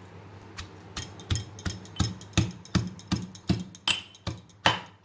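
Pestle pounding roasted prickly-pear (nagphani) pieces in a small ginger-crushing mortar: a run of even strokes, about three a second, starting about a second in.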